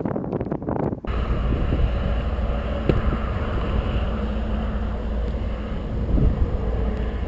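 Steady low rumble and hiss of a vehicle on the road, heard from inside the cabin. It starts abruptly about a second in, replacing a choppier, muffled noise.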